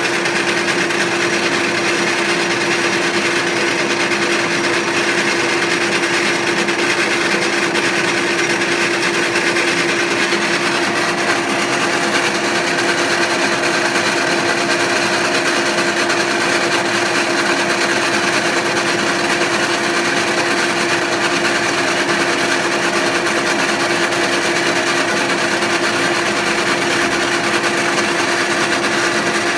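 Small lathe running steadily with a constant hum while turning an aluminium blank into a new pressure-relief piston for an oil pump.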